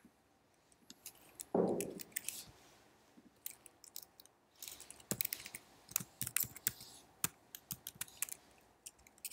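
Typing on a computer keyboard: scattered key clicks, coming fast and dense from about halfway on, with one brief louder noise about a second and a half in.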